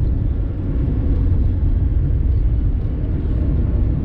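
Steady low rumble of engine and road noise inside the cabin of a 1984 Porsche 944 on the move, its 2.5-litre four-cylinder holding an even pitch.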